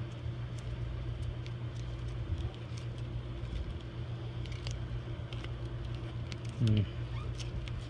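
Faint scattered clicks and rustles of hands working two-part epoxy putty onto a threaded water-line fitting, over a steady low hum. A brief vocal murmur comes near the end.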